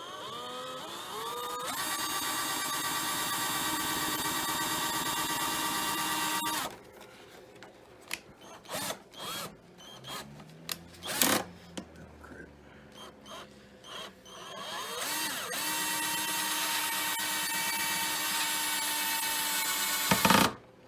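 Power drill driving a self-tapping screw: the motor spins up and runs steadily for about five seconds, then stops. A few knocks and clicks follow, then it spins up and runs again for about five seconds before cutting off.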